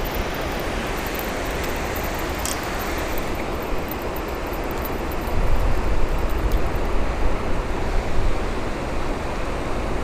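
Steady rush of river water pouring over a low concrete weir, getting a little louder and more uneven about halfway through.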